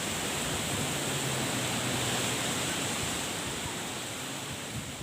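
Steady rushing of surf and strong wind along the shore, an even hiss that eases slightly toward the end.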